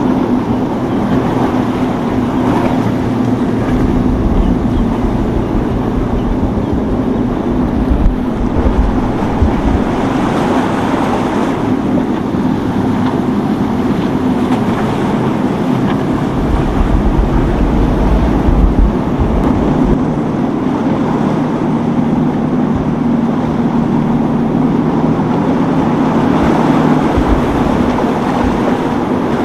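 Boat engines running with a steady drone over breaking waves and surf, and a second engine tone joining partway through. Gusts of wind buffet the microphone now and then.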